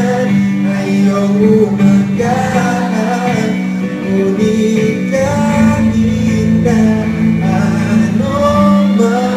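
Live male vocal sung into a handheld microphone over electric guitar accompaniment, the melody held and sliding between notes.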